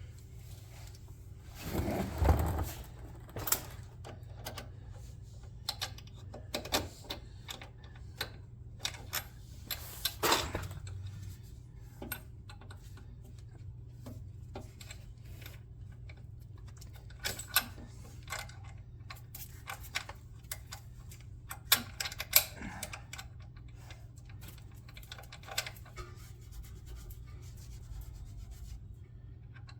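Irregular clicks, clinks and knocks of hand tools and metal parts being handled while working on the car, with a few louder scraping bursts about two seconds in, around ten seconds and past twenty seconds, over a steady low hum.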